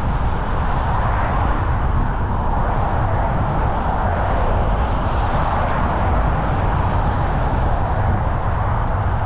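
Steady road noise of a moving car: a constant low rumble with a hiss, with no change in level.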